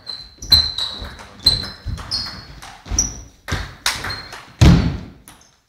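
Table-tennis rally: the ball clicks sharply off the bats and the table in a quick back-and-forth, about two hits a second. A heavier thud comes near the end.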